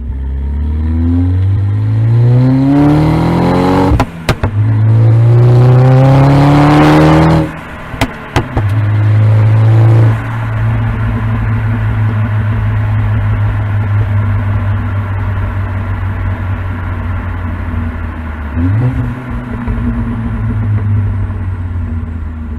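Turbocharged 2.0 TFSI four-cylinder of a 2011 Audi A4 B8 with a K04 turbo upgrade, accelerating hard through two gears, the engine note rising in pitch each time and breaking off at the shifts with a few sharp clicks. It then settles to a steady cruise, with one short rise in pitch near the end.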